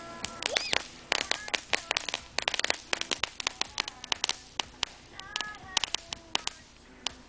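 A string of firecrackers going off: a rapid, irregular run of sharp pops and cracks that thins out toward the end.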